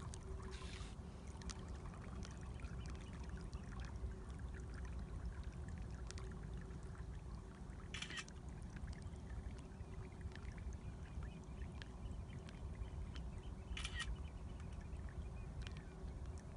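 Small trickling and lapping water sounds around moored boats over a low steady rumble, with scattered small clicks. Three short hisses stand out: about a second in, about halfway through and near the end.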